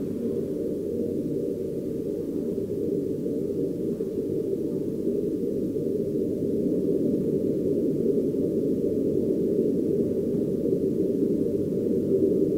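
A dense, steady low rumbling drone of noise with no clear pitch, slowly growing louder, and a faint thin steady tone above it: the installation's ambient soundscape.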